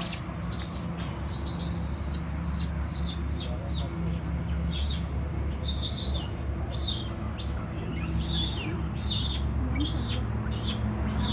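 A rapid series of short, high chirping calls, many falling in pitch, repeated about once or twice a second over a steady low hum.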